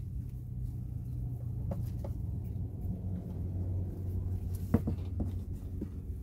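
A steady low rumble, with a few light knocks and clicks of hands working in a plastic rodent bin full of wood shavings; the sharpest knock comes about three-quarters of the way through.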